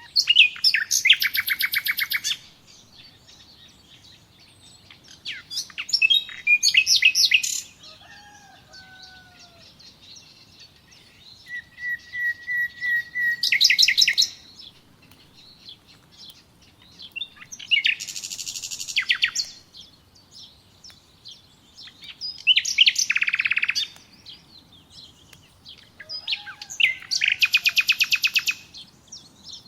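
A songbird singing six phrases of fast, high, repeated chirping trills, each one to two seconds long, with pauses of a few seconds between them. A fainter, lower whistled note that slides down comes twice.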